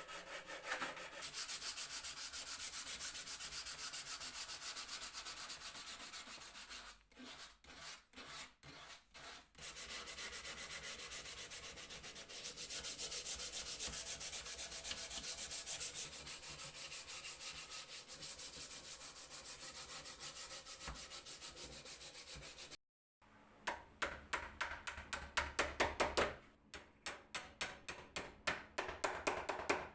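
Sandpaper rubbed back and forth over wood by hand in quick, continuous strokes, with a few separate strokes about a third of the way through. After a brief break near the end, the strokes are slower, louder and evenly spaced.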